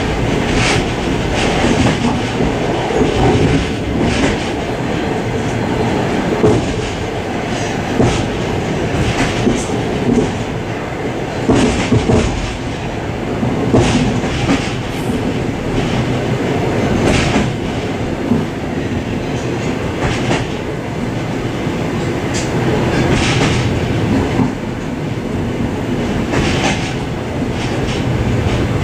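Suburban train running along the track, heard from inside its vestibule: a steady rumble of wheels on rail, with a sharp clack over a rail joint every couple of seconds.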